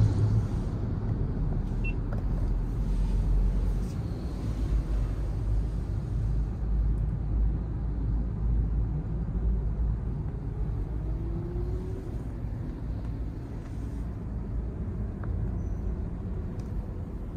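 Road and drivetrain noise inside the cabin of a Honda Step WGN Spada e:HEV hybrid minivan, heard from the rear seats while it drives in town: a steady low rumble, with a brief faint rising whine about two-thirds of the way through.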